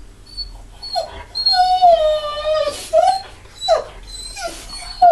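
Rottweiler crying and whining: a few short cries, then one long whine that sinks slightly in pitch, then more short cries. It is the distress of a dog left alone while her owner is out.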